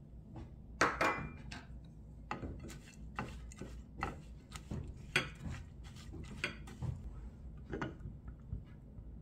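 Silicone spatula stirring dark chocolate shavings into cream in a ceramic bowl, making irregular scrapes and light knocks against the bowl, the sharpest about a second in.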